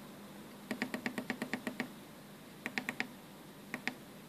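Small tactile push buttons on a DSO138 oscilloscope kit clicking as they are pressed repeatedly to step the time base: a quick run of about ten clicks just under a second in, then a group of three and a single click later on.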